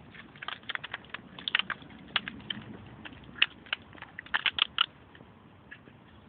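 Irregular sharp clicks and cracks of plastic being pried and snapped as the circuit board is worked out of an alarm clock radio, with a quick run of cracks a little past four seconds in.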